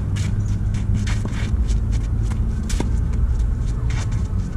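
Tennis balls struck by rackets in a rally: a few sharp pops spaced a second or more apart, over a steady low rumble.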